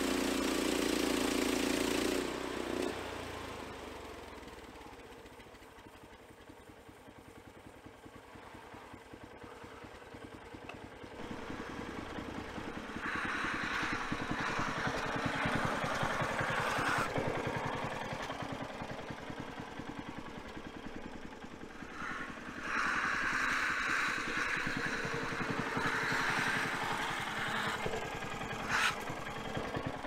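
Gas engine of a portable bandsaw sawmill, running hard at first, then dropping to idle about two seconds in and idling steadily. Two louder stretches of higher hissing sound come partway through and near the end, and there is a sharp click just before the end.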